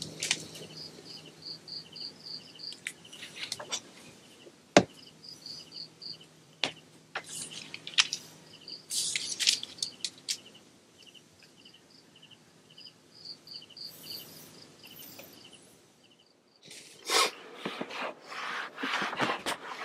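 Crickets chirping in short, evenly pulsed trills at two different pitches, with scattered sharp clicks and light rustles, one loud click about five seconds in. Near the end, a burst of rustling and shuffling noise.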